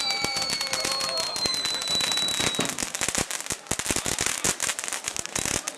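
Hand-held firework fountains and firecrackers crackling and popping in a dense, irregular stream over a hissing spray of sparks, thinning out near the end. A faint high whistle slides slowly down and fades about halfway through.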